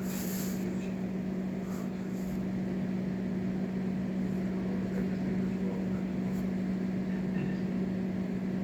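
A steady low hum that holds one pitch throughout, with no breathing rhythm in it.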